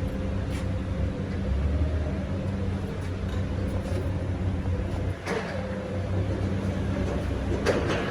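Kia Carnival minivan engine running steadily at idle after its repair, a low even hum, with two short clicks partway through.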